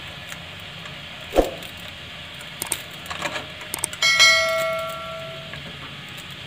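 Water boiling steadily in a nonstick pan while blocks of instant noodles are dropped in, with a few small knocks. About four seconds in, a single metallic clang rings out and fades over about a second and a half.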